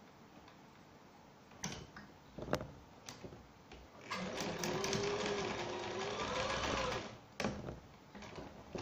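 Electric domestic sewing machine stitching metallic trim onto fabric. A few sharp clicks come first, then the machine runs for about three seconds, its motor pitch rising a little near the end.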